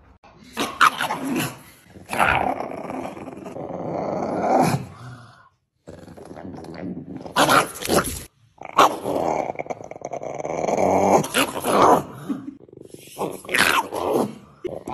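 Dogs growling and making drawn-out vocal grumbles: first Siberian huskies, then, after a brief silent gap about five and a half seconds in, another dog growling.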